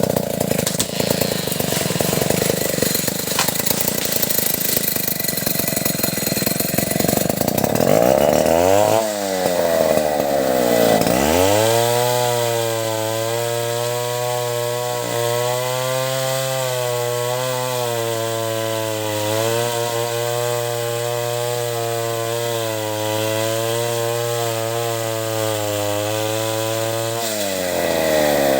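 Stihl 070 two-stroke chainsaw cutting into an acacia trunk under load; around nine seconds in the engine speed falls, and it then runs at a steady, even note before revving up again near the end.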